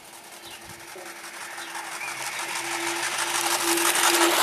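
Live-steam garden-scale model of LNER A4 locomotive No. 4468 Mallard running towards and past, its rapid exhaust beats and running noise growing steadily louder, loudest near the end.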